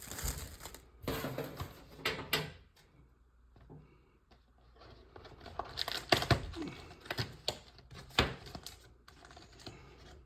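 Handling of a cardboard trading card box and its wrapped packs: scattered clicks, taps and light crinkling, with a quieter pause of about two seconds near the middle.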